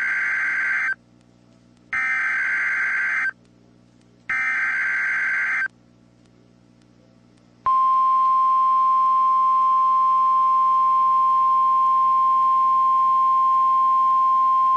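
Emergency Alert System SAME header on NOAA Weather Radio: three bursts of modem-like data tones, each about a second long and about a second apart. About eight seconds in, the steady single-pitch 1050 Hz weather radio warning alarm tone starts and holds.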